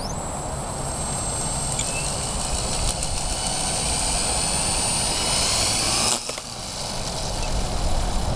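Gaui X7 electric RC helicopter running: a steady high motor whine over rushing rotor noise, which cuts off abruptly about six seconds in and leaves a lower, rougher noise.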